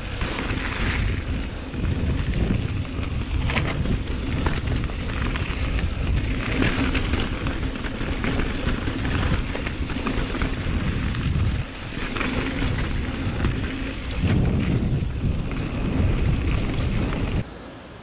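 Wind rumbling across a POV camera's microphone while a mountain bike rolls downhill over a wet, muddy trail, with scattered clicks and rattles from the bike. The noise cuts off suddenly near the end.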